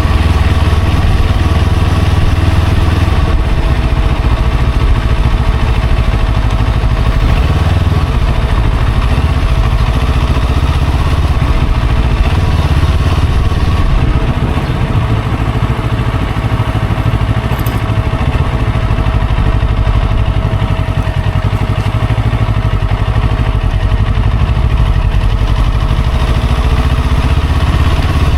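A vehicle on the move in traffic: a steady, loud low engine and road rumble, with a faint steady whine above it.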